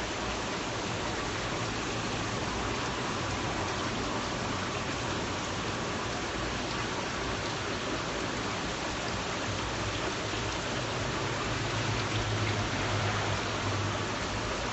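Steady rush of running water from the stingray tanks' filtration and plumbing, with a low steady hum that grows louder about ten seconds in.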